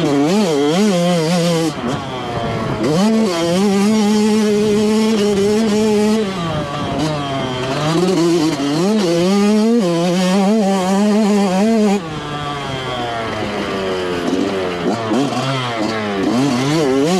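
Yamaha YZ125 two-stroke dirt bike with an FMF slip-on silencer being ridden hard. The engine revs up and down through the gears and is held at high revs for several seconds at a time. About twelve seconds in it drops to a quieter, lower note, then revs up again near the end.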